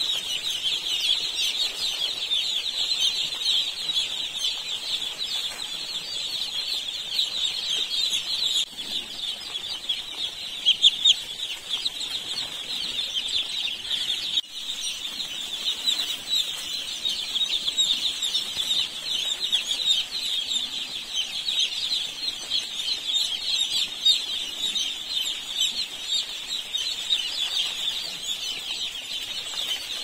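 A large flock of baby chicks peeping all at once: a dense, unbroken chorus of many high-pitched short chirps.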